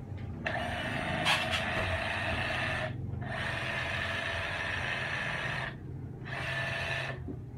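DeWalt DCH273 cordless SDS-Plus rotary hammer running free in hammer-drill mode, with no bit in work. The trigger is pulled three times: two runs of about two and a half seconds and a short last one, each a steady motor-and-hammer whine that stops abruptly.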